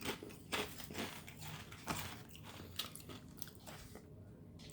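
A person chewing crunchy kettle-cooked potato chips, with irregular crunches every half second or so.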